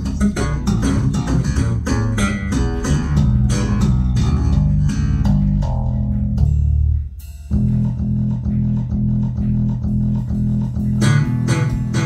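Recorded music with prominent plucked bass and guitar, played loud over Dutch & Dutch 8c loudspeakers, with a short break in the music about seven seconds in.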